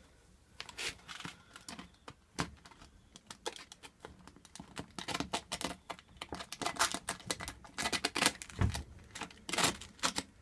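Grip tape on a scooter deck being scraped along the deck's edge with an Allen key to mark where to trim it. Irregular scratching and crinkling with sharp little clicks, busier in the second half.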